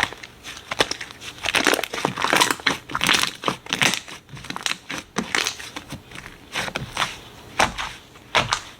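Slime being squeezed and pressed by hand: a dense, irregular run of sharp crackles and pops.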